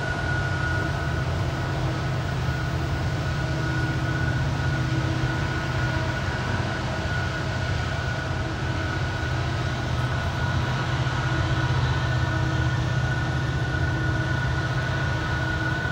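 Freight train rolling past with a diesel locomotive working: a steady low engine drone under a steady high-pitched tone.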